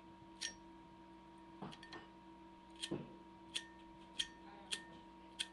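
Zippo lighter handled in the hand: about eight sharp, light metallic clicks and clinks, spaced irregularly about half a second to a second apart.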